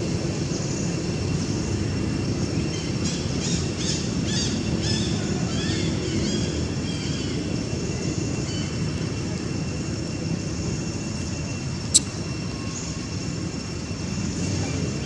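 Outdoor forest ambience: a steady low rumble under a faint high, even drone. A run of short chirps comes a few seconds in, and there is a single sharp click near the end.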